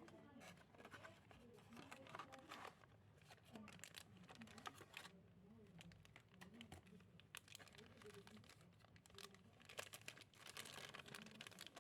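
Crinkling plastic packaging and light clicks of small plastic pieces being handled, in irregular rustles and taps.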